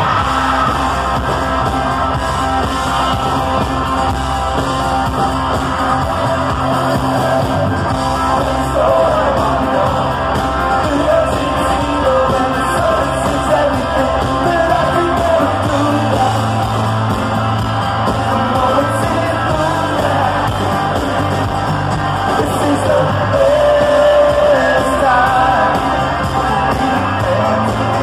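Rock band playing live: lead vocal over guitar, bass guitar and drums, heard from the audience.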